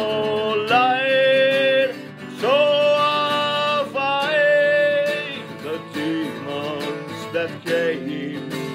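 A man singing long held notes over a strummed acoustic guitar, in a slow dark-country style.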